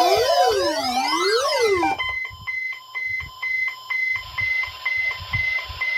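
Weather alert radio alarm sounding for the NOAA weather radio weekly test. It starts as a warbling siren that sweeps up and down about once a second, then switches about two seconds in to rapid high-pitched beeping, about two beeps a second.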